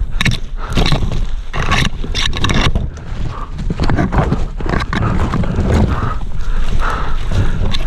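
Footsteps of a person moving quickly on foot over rough ground, each step a short thud with rustling, over a heavy low rumble.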